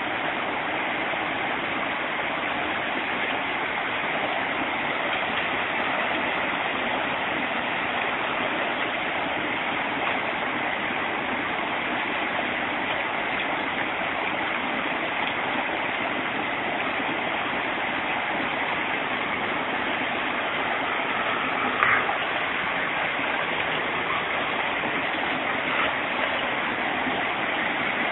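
Shallow rocky stream rushing steadily over stones, with a single sharp knock about three-quarters of the way through.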